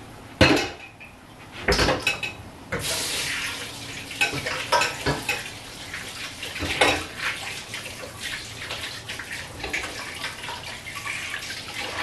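Plates and cutlery clattering in a kitchen sink as they are washed up, with two loud knocks in the first two seconds. A tap runs from about three seconds in, under the continuing clinks.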